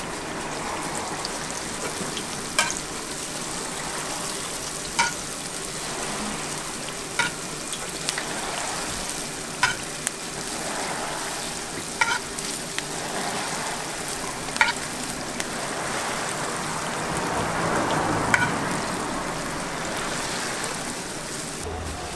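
Sweet rice-dough pancakes (hotteok) frying in oil on a flat steel griddle: a steady sizzle, with a sharp metal clack about every two and a half seconds as a hand-held hotteok press comes down to flatten each dough ball.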